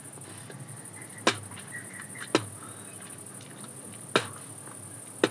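Crickets chirring steadily in a high, even band, with four sharp clicks one to two seconds apart.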